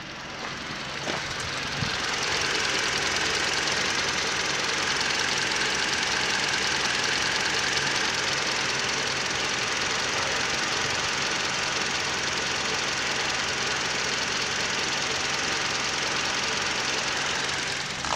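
Toyota HiAce's 2.7-litre petrol four-cylinder engine idling steadily, heard close up with the engine cover open. It grows louder over the first two seconds, then holds an even run.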